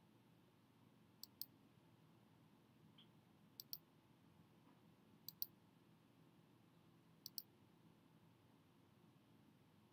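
Computer mouse clicks: four quick pairs of clicks, a button pressed and released, about every two seconds, over near-silent room tone.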